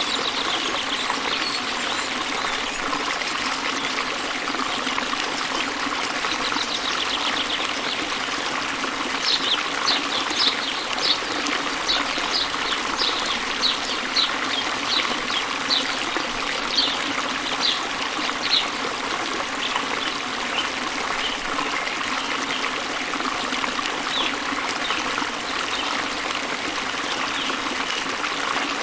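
Waterfall splashing and trickling steadily. From about a third of the way in, a bird repeats a short high note in a long even series lasting about ten seconds, with a few more notes later.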